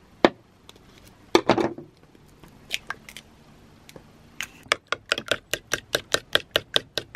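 Eggs cracked against a ceramic bowl, a few sharp knocks in the first half, then a fork beating the eggs in the bowl: quick, even clinks about six a second from about halfway in.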